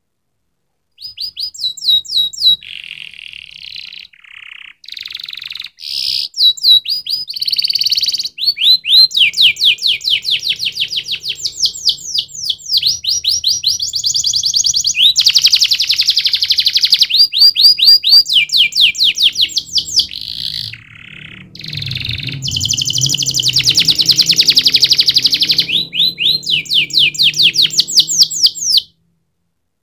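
Domestic canary singing a long song of fast trills, each a run of rapidly repeated high notes, switching from one trill to the next with a brief dip about two-thirds of the way through.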